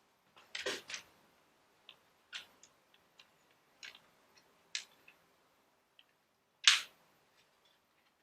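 Plastic spudger prying at the Lenovo Yoga 2 11 laptop's plastic bottom case: a string of scattered light clicks and snaps at irregular spacing, the loudest about two-thirds of the way through.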